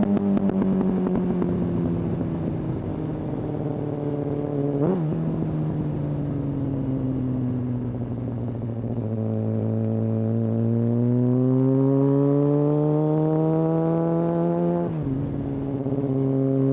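Kawasaki ZX-6R inline-four running through a Hindle exhaust while riding. The engine pitch sags slowly off the throttle, with a short sharp rev spike about five seconds in. It then climbs steadily under throttle and drops with a brief dip near the end, like a gear change.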